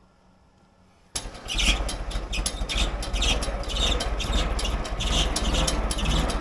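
International 340 crawler's engine running, with a steady low drone and a regular clatter laid over it. It comes in abruptly about a second in.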